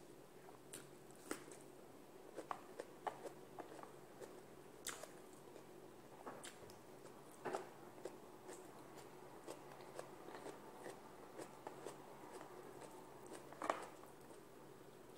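Close-up eating sounds: chewing with scattered soft clicks and smacks as food is picked apart by hand, a few louder about five seconds in, midway and near the end, over a faint steady hum.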